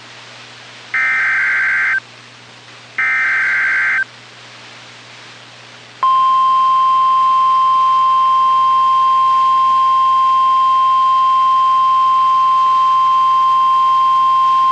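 NOAA Weather Radio EAS alert: two one-second buzzing data bursts, the repeated SAME digital header, then after a two-second pause the steady 1050 Hz Warning Alarm Tone holding for about nine seconds. This sequence signals that a warning follows, here a tornado warning.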